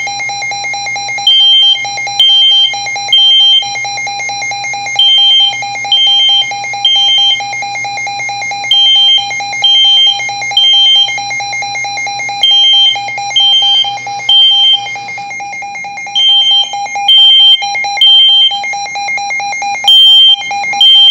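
A Midland WR120 weather alert radio and a smoke detector sounding their alarms together. A steady, fast-pulsing alert tone runs throughout under loud, high beeps that come in groups of three with a pause between groups, the temporal-three pattern of a smoke alarm.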